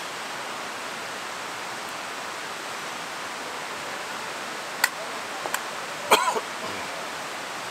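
Steady rushing of a river or stream. A few sharp clicks come about five seconds in, and a short, louder sound follows just after six seconds.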